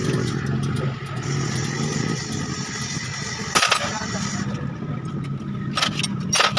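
Steel hand tools and engine parts clinking sharply, once about halfway and twice near the end, over a steady engine hum from a vehicle running nearby.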